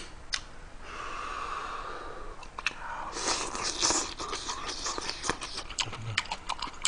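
A person blowing hard on a spoonful of very hot kimchi stew to cool it, then slurping and chewing it, with a quick run of wet mouth clicks near the end.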